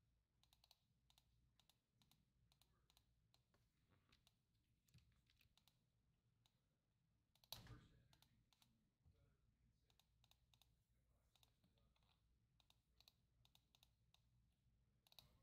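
Very faint computer mouse and keyboard clicks, scattered and irregular, with one slightly louder soft sound about seven and a half seconds in; otherwise near silence.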